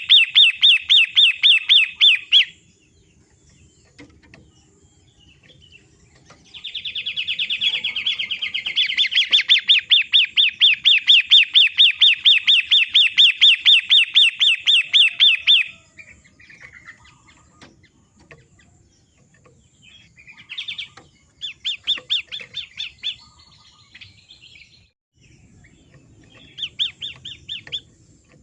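Long-tailed shrike (pentet) song: fast runs of repeated, high, chattering notes at about six a second. A long run goes from about six to sixteen seconds in, and shorter bursts come near the end.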